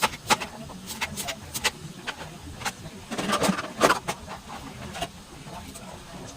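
Irregular clicks and knocks of kitchen utensils, with a denser clatter about three seconds in.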